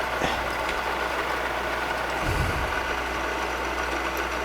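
Milling machine running with a steady mechanical hum, with a small click near the start and a soft low knock about two seconds in.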